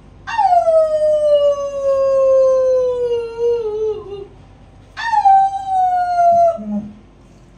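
A woman imitating a dog's howl with two long, falling howls. The first lasts about four seconds; a shorter second one starts about five seconds in.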